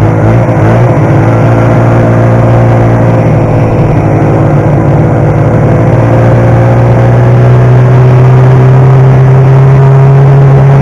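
1972 Ski-Doo TNT 440's two-stroke twin engine running loudly as the sled rides along, a steady drone whose pitch climbs slowly.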